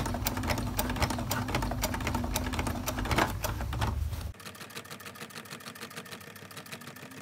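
Electric home sewing machine stitching through layers of a quilted fabric bag, a rapid, even clatter of needle strokes over a low motor hum. About four seconds in it stops abruptly and the sound drops to a faint level.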